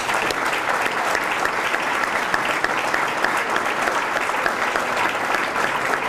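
An audience applauding steadily, a dense clatter of many hands clapping, welcoming a speaker to the podium.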